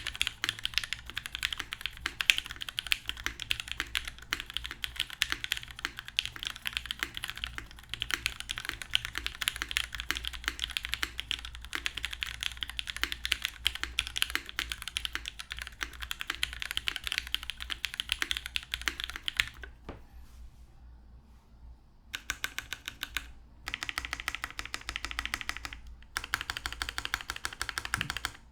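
Fast, continuous typing on a top-mounted Duck Orion V2 mechanical keyboard with lubed, retooled Cherry MX Black linear switches on an aluminum plate and Cherry doubleshot keycaps, with no foam dampening. The typing stops for about two seconds roughly two-thirds of the way through, then resumes in three short bursts.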